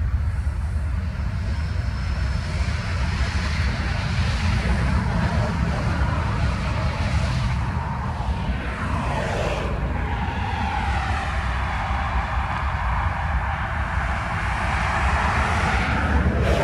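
Freight train rolling by: empty covered hopper cars with a steady low rumble of steel wheels on rail. About ten seconds in, a diesel locomotive's engine comes in, its pitch rising slowly.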